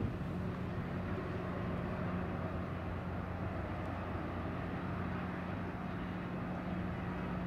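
Steady low drone of ship machinery in the harbour, with two constant hum tones over a broad even rumble.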